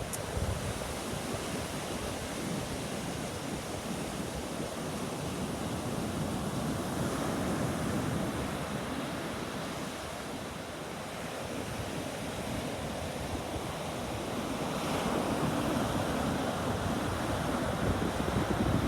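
Sea surf washing onto a beach, a continuous rush that swells louder about eight seconds in and again near the end, with wind buffeting the microphone.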